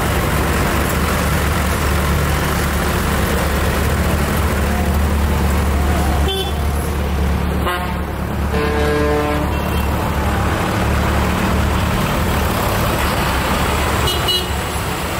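Farm tractors' diesel engines running steadily as they drive past at low speed, with a vehicle horn sounding for about a second midway and shorter toots a little before and near the end.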